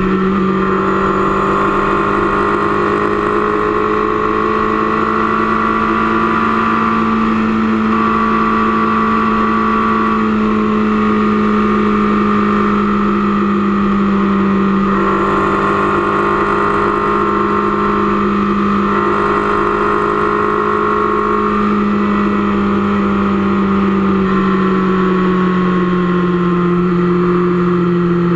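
Motorcycle engine running steadily at highway cruising speed, a constant drone heard from the rider's seat; its pitch eases slightly lower near the end.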